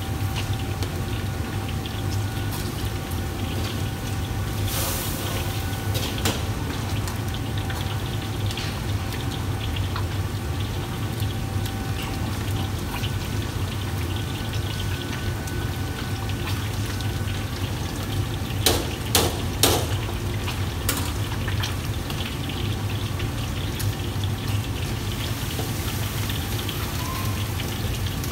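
Steady roar of a commercial gas wok range and its extraction, with liquid simmering in the woks. A few sharp metal clanks of utensils against the woks, three in quick succession about two-thirds of the way through.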